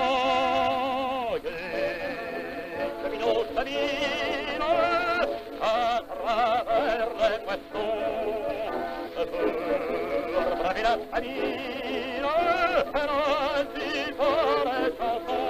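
A man singing a song with strong vibrato in phrases over instrumental accompaniment, on an early 1906 sound-film recording.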